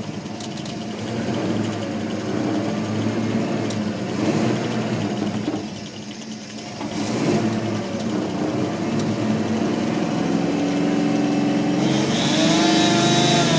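Vehicle engine revving, its pitch wavering up and down and climbing about twelve seconds in.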